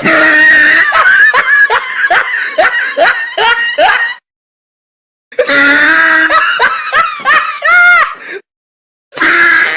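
Laughing sound effects, one after another with short silent gaps: a laugh of about eight quick rhythmic bursts, a second laugh that ends in high, squeaky rising notes, and a third laugh starting near the end.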